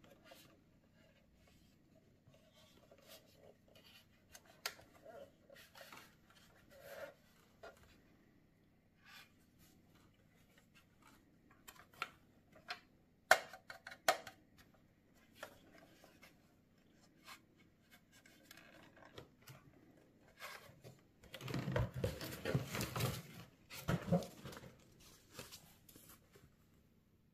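Hands handling a plastic coin-bank toy house: scattered light clicks and taps of plastic, with one sharper click about halfway. About three-quarters of the way through comes a louder few-second stretch of rustling and handling noise.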